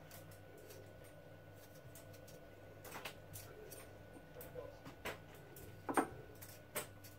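Small knife peeling a potato: faint scattered scraping clicks, with a few sharper knocks on a wooden chopping board, the loudest about six seconds in.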